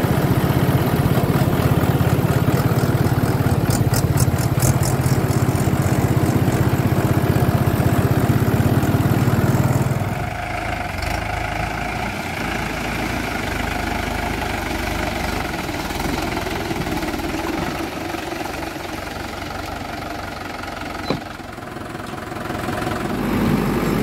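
Swaraj 843 XM tractor's three-cylinder diesel engine running steadily, loud and close at first, then quieter and more distant from about ten seconds in, and loud again near the end.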